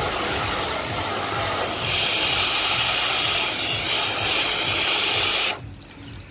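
Water spraying from a hose nozzle onto a car's bonnet for a water-beading and sheeting test of its ceramic coating. It is a steady hiss that turns harsher about two seconds in and cuts off suddenly near the end.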